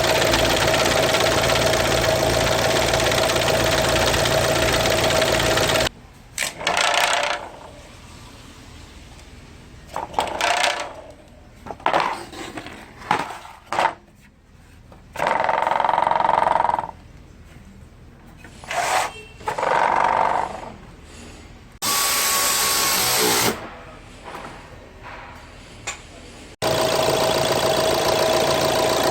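Nissan Qashqai engine bay running with a loud, steady noise and a whine from a failed radiator cooling fan, which appears when the air conditioning is switched on. In the middle it cuts to a quieter stretch of short, scattered workshop tool sounds, and near the end the loud steady fan noise returns.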